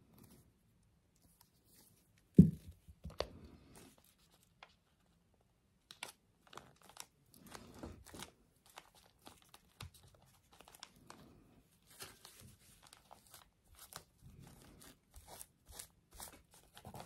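A single thump about two and a half seconds in, the loudest sound here, then irregular paper rustling and crinkling as hands smooth, press and shift the pages of a handmade paper journal.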